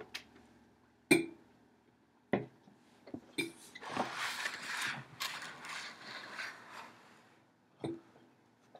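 Handling noises at a table: a few sharp knocks and clicks, with a stretch of scraping and rubbing in the middle.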